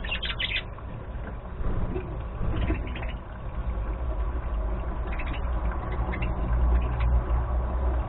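Budgerigars giving short chirps in scattered bursts, a few times, over a steady low rumble.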